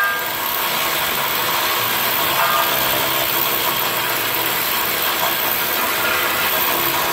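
A power tool running steadily and loudly, driving a socket on a long extension bar on the car's front suspension.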